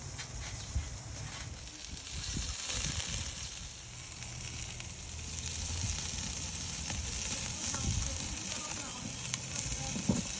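Pork ribs sizzling steadily on a grill, with a few soft knocks near the end.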